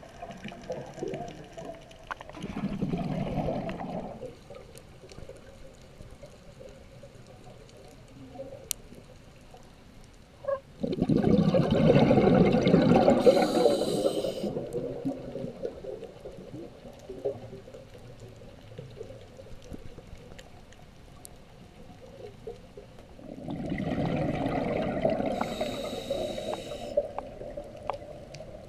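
Scuba diver's exhaled breath bubbling out of the regulator underwater: three rushing, gurgling surges about ten seconds apart, the middle one loudest, two of them with a high hiss.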